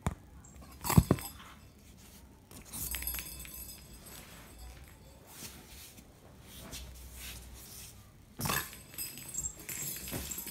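A kitten's plastic cage ball toy clattering and rolling across a foam floor mat as it is batted about, with a sharp knock about a second in and another burst of clatter near the end.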